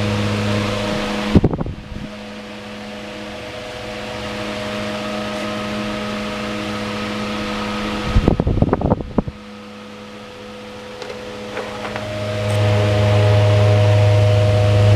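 Early-1950s 10-inch Diehl electric table fan running at its single speed with the oscillator on: a steady motor hum and whir of the blades that swells and fades as the head sweeps back and forth. Each time it turns to face the microphone the airflow buffets it in a short gust, about a second and a half in and again about eight seconds in.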